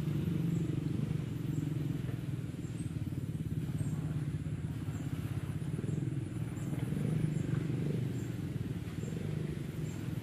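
A steady low engine drone, with faint high chirps about once or twice a second.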